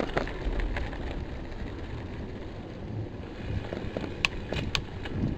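Mountain bike rolling along a dirt trail: steady tyre and rumble noise with wind on the chest-mounted camera's microphone, and a few sharp clicks and rattles about four seconds in.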